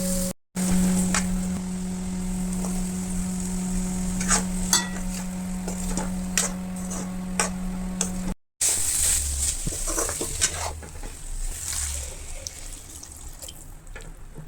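Food sizzling as it fries in a pan while a spoon stirs it, scraping and clicking against the metal. A steady hum runs under the first half and stops at a cut about eight seconds in.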